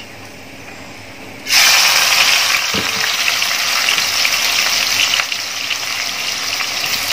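Thinly sliced onions tipped into a pot of hot oil about a second and a half in, setting off a loud, steady sizzle as they begin deep-frying into crisp fried onions (birista).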